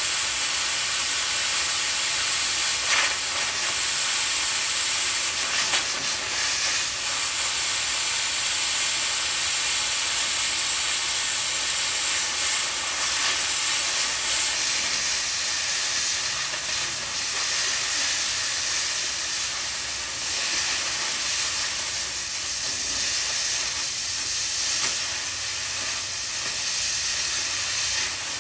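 Oxy-fuel cutting torch running steadily while cutting steel: a loud, continuous hiss of the gas jet with occasional brief crackles.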